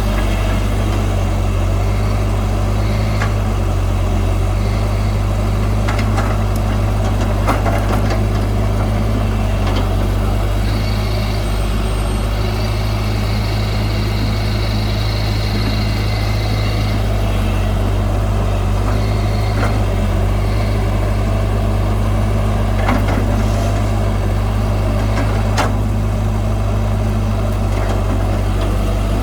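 Heavy diesel earthmoving machinery running steadily: a loud low engine drone, with a few sharp metallic knocks and a faint high whine partway through.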